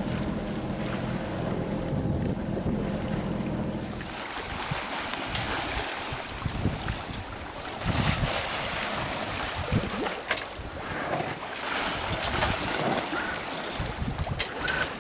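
Sailboat under way: wind buffeting the microphone and water rushing past the hull, with scattered knocks and clicks. For the first four seconds a steady low hum sounds underneath, then stops abruptly.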